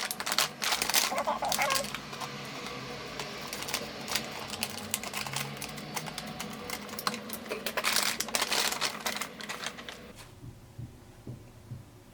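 Plastic packaging crinkling and crackling as it is handled and opened, in dense bursts at the start and again around the eight-second mark, with softer rustling between. It goes quiet about ten seconds in.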